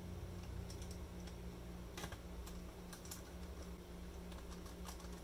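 Faint, scattered clicks and ticks as a small screwdriver drives screws into the plastic bottom case of an IBM ThinkPad X40 and hands press and handle the case.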